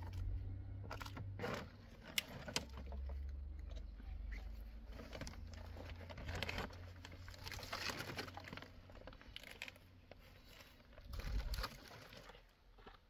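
Dry branches and firewood being picked up and handled from a woodpile: scattered sharp knocks and cracks of wood, with dry rustling and scraping of twigs.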